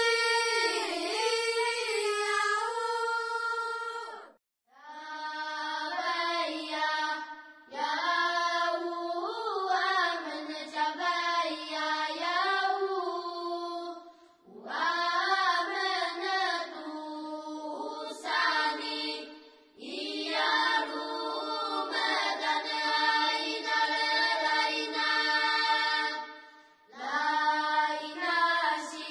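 Singing in long held phrases, the pitch gliding between notes, each phrase lasting a few seconds with short breaks between them.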